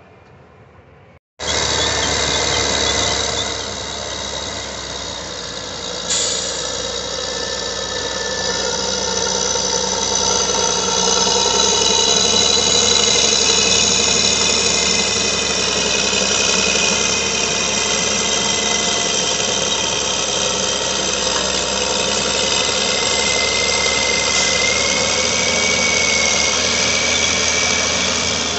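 Cat 623E elevating (paddle) scraper loading: its diesel engine working steadily under load, with a steady high-pitched squeal of metal over it. It comes in loud about a second in, after a faint start.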